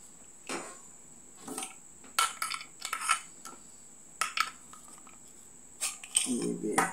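Scattered metallic clinks and knocks as the metal weight inside a dynamic microphone's metal handle is worked loose and shifted about, about seven taps spread over several seconds.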